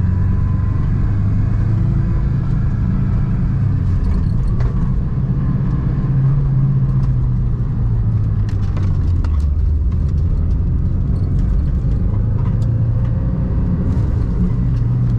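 Vehicle driving a track lap, heard from on board: steady engine and road noise, its pitch rising and falling a little.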